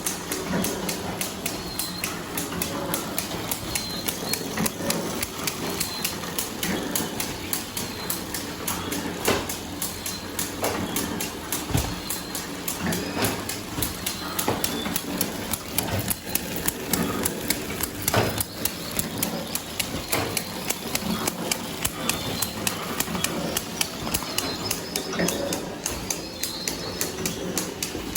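Flow-wrap packaging machine running while it wraps paper cups: a steady, fast clatter of clicks, several a second, with a few louder knocks.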